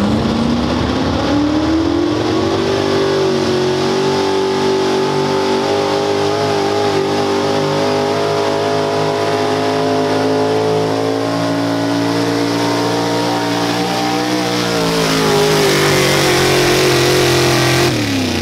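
Big-block gasoline V8 of a pulling truck running hard under load as it drags a weight-transfer sled. The revs climb over the first few seconds, hold high and steady, sag about fourteen seconds in, and fall away near the end as the pull stops.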